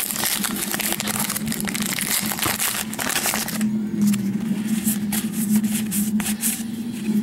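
Wrapper of a 2012 Topps Gypsy Queen baseball card pack crinkling as it is torn open, followed by light clicks and rustles of cards being handled.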